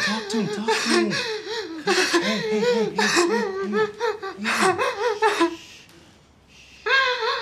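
Two people laughing together in quick pulsing bursts, one voice lower than the other; the laughter dies down about five and a half seconds in, then a short burst of laughter comes again near the end.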